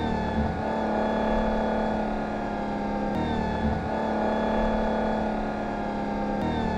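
Sports car engine sound effect holding a steady engine note. The clip loops, with a short break and jump in the sound about three seconds in and again near the end.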